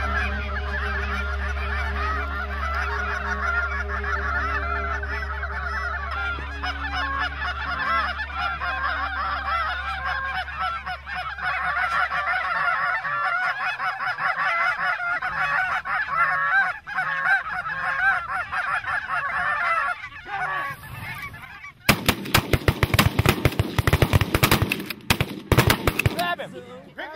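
A large flock of geese honking overhead, many calls overlapping without a break. About 22 seconds in comes a volley of shotgun blasts in quick succession over roughly four seconds, several guns firing at once on the flock.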